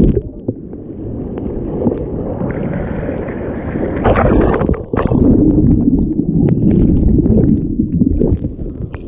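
Shore-break surf crashing over and churning around a GoPro, heard with the camera under water: a loud, muffled churning of water and sand, with a brighter surge of breaking water about four seconds in.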